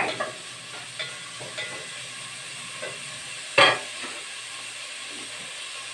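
Chopped bacon frying in lard in an aluminium pot, a steady sizzle, with a wooden spoon stirring it at first. A brief louder sound cuts in about three and a half seconds in.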